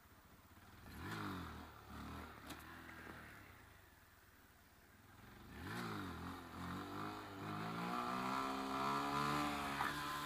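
Honda Grom's 125 cc single-cylinder engine revved for wheelies. The revs rise and fall about a second in and again around six seconds, with a lull between. In the last few seconds the engine note climbs steadily as the bike accelerates.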